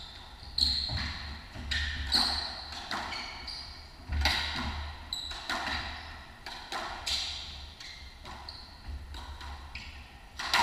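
A squash rally: the rubber ball cracks off racquets and thuds against the court walls about once a second, with short high squeaks of court shoes on the hardwood floor in between. It all rings in the hard-walled court.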